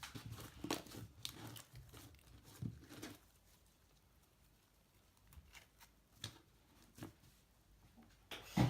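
Slime being squeezed and worked by hand, giving irregular small clicks, pops and crackles. They come thickly for the first three seconds, then only now and then, with one louder knock near the end.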